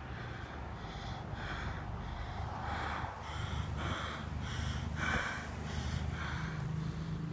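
Quick, heavy breathing close to the microphone, about two breaths a second, over the low steady hum of buses idling.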